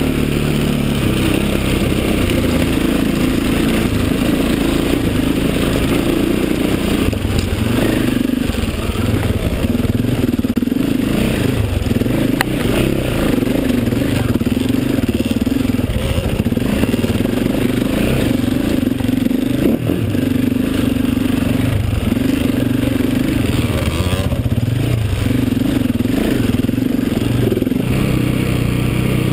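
KTM dirt bike's engine running under way on a rough trail, its note rising and falling every few seconds as the throttle opens and closes.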